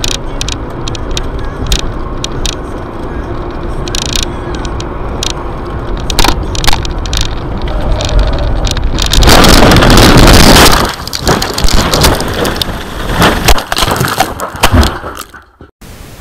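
Car road and engine noise heard through a dashcam, with scattered clicks. About nine seconds in comes a loud, distorted crash lasting about a second and a half, followed by a run of irregular knocks and bangs, typical of a collision; it ends in a brief faint hiss of static.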